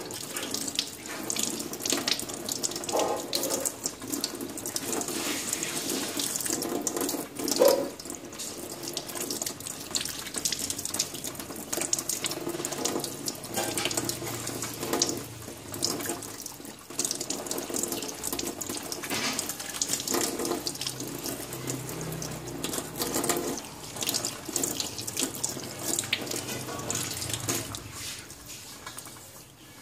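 Tap water running into a stainless steel sink, splashing unevenly over hands that rub and rinse a piece of raw meat under the stream.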